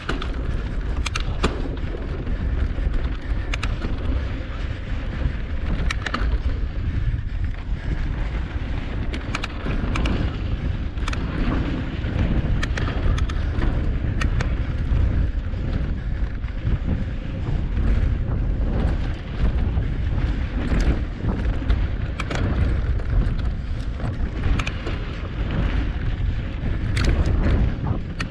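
Mountain bike ridden fast over a rocky dirt singletrack: a steady low rumble of wind buffeting the bike-mounted camera's microphone, broken by frequent sharp clicks and rattles as the tyres and bike go over stones.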